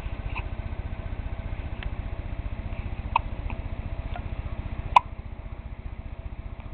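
A baby hiccuping: several short, soft hics at uneven intervals, the loudest about five seconds in, over a steady low hum.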